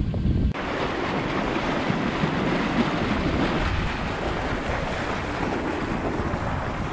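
Steady rush of sea water and waves, with some wind on the microphone. It starts abruptly about half a second in, replacing a low wind rumble.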